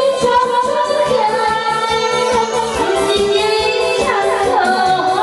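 A voice singing karaoke through a microphone over a loud backing track, with long held notes that waver in pitch.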